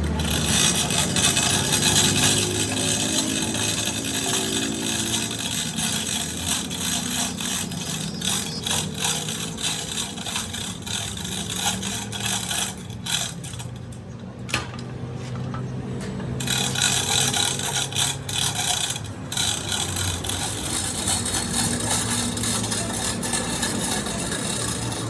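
A power tool working on metal in long noisy spells. It stops for a few seconds about halfway, with a few knocks, then starts again.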